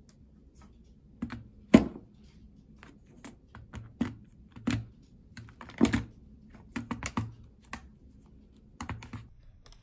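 Irregular plastic clicks and knocks as a smartphone is laid on a folding Bluetooth keyboard's built-in stand, then turned and shifted, with the keys clicking under hands and phone. A single sharp knock about two seconds in is the loudest.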